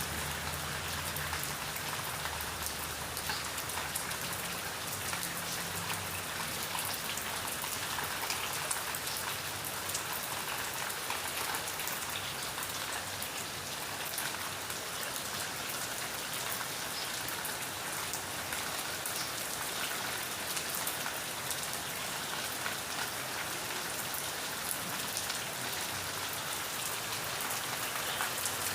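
Steady rain falling, with many small raindrop impacts sounding on a surface through a continuous hiss.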